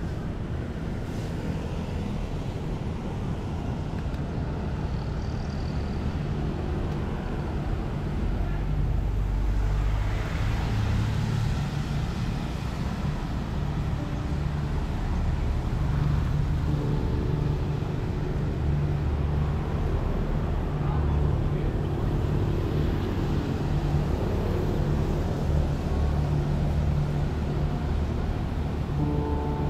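City street traffic: a steady rumble of engines and road noise from passing vehicles.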